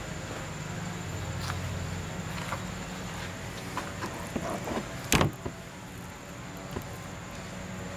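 Raw rack of pork ribs being handled and turned over on a plastic cutting board: small soft clicks and rubs, with one sharp knock about five seconds in as the rack is flipped. A steady low hum and a thin high whine run underneath.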